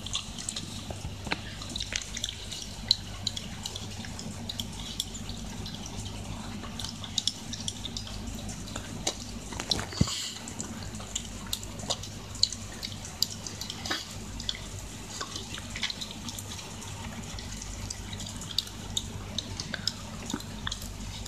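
A Shiba Inu licking and eating from a stainless steel bowl: a steady run of quick, wet licking and smacking clicks, with one sharper knock about halfway through.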